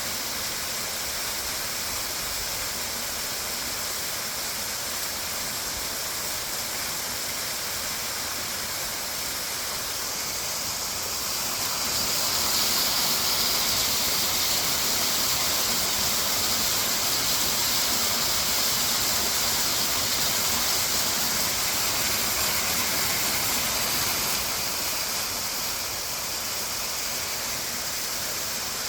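Waterfall rushing steadily. It swells louder and brighter for about twelve seconds in the middle, then settles back.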